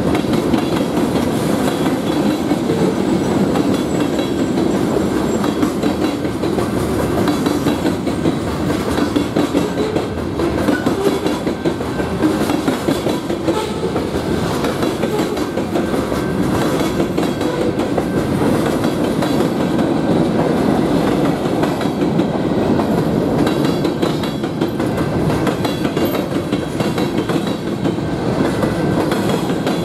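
Freight train cars, including tank cars, covered hoppers and center-beam flatcars, rolling steadily past at a grade crossing. Their steel wheels make a continuous rumble with clickety-clack clatter, even in loudness throughout.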